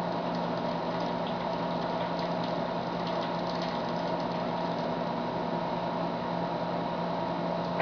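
Steady background hum and hiss, with faint gulps as a man chugs malt liquor straight from the bottle.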